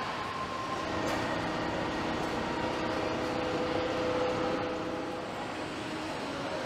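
Steady machinery noise of a truck assembly line, with a faint hum running through it.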